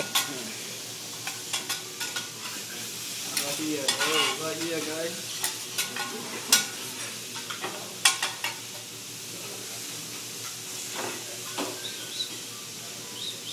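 Food sizzling on a hibachi flat-top griddle, a steady hiss, with irregular sharp clacks and scrapes of the chef's metal utensils against the hot steel as the vegetables are stirred and tossed.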